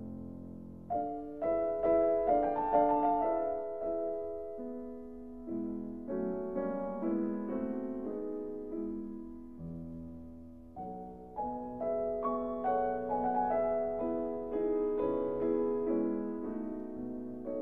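Background piano music: a melody of struck, ringing notes in phrases a few seconds long.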